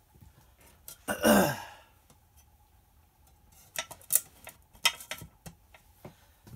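One short throat sound from a man, falling in pitch, about a second in, the loudest thing heard. From about halfway a series of light clicks and taps as the brass clock case and its panels are handled and set on the bench.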